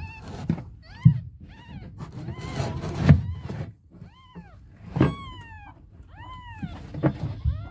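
Newborn tabby kittens mewing over and over: short, high cries that each rise and fall in pitch, a little apart, one near the middle drawn out longer and falling. These are hungry kittens calling for their mother. A few low thumps sound underneath.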